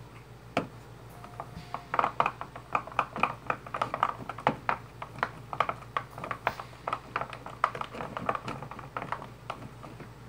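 A spoon stirring a sticky glue-and-shaving-cream slime mixture in a plastic tub, making rapid wet squelching clicks and scrapes, several a second. A single sharp click comes about half a second in.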